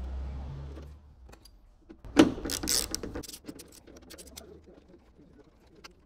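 Metal hand tools clicking and clattering against the inner steel panel of a car door as a 10 mm socket on an extension bar is worked on the door's bolts. The loudest, densest clatter comes about two seconds in.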